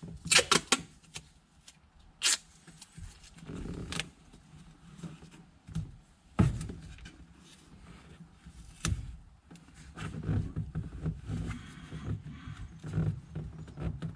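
Tape pulled off a roll in a few quick rips near the start, then scattered knocks, clicks and rustling as tape and parts are handled and pressed into place.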